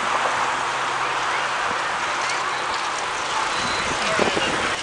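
Steady rushing noise of riding a bicycle in a large group: wind and road noise, with the indistinct talk of other riders mixed in and a few light clicks near the end.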